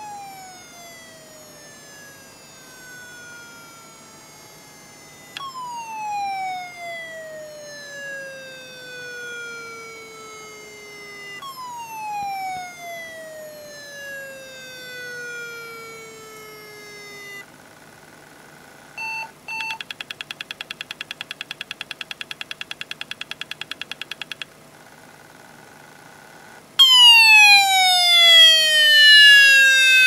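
Old laptop hard drive making strange noises: a whine that starts high and falls in pitch over several seconds, three times over, then a fast, even buzzing rattle for about five seconds, then a louder falling whine near the end. The repeated noise is the sign of a failing drive.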